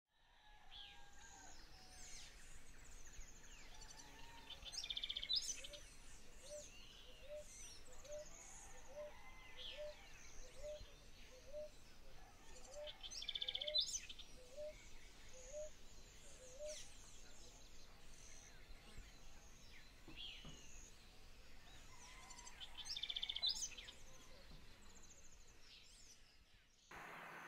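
Several wild birds calling and chirping, with high chirps and trills throughout and three louder buzzy calls about five, fourteen and twenty-three seconds in. A short low note repeats about three times every two seconds from about five seconds in to about seventeen, and the background hiss rises suddenly near the end.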